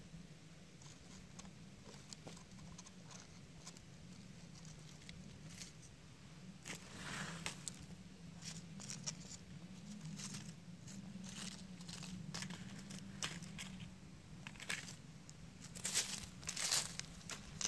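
Dry fallen leaves crackling and rustling as they are disturbed, in irregular short bursts: sparse at first, busier from about seven seconds in and loudest near the end.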